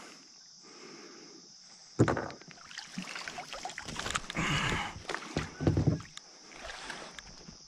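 Water splashing and dripping as a shot Canada goose is hauled out of the river into a kayak, with a sudden knock about two seconds in and more bumps around six seconds.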